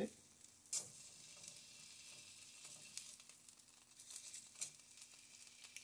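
Marinated pork shoulder sizzling in hot grapeseed oil in a nonstick frying pan as the first pieces are laid in, a faint steady hiss with light crackles. A sharp click a little under a second in.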